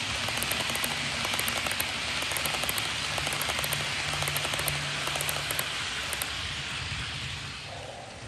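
HO-scale model passenger train rolling past close by: a steady rushing of metal wheels on the rails, with rapid small clicks as they run over the track. It fades away about seven seconds in as the last coach passes.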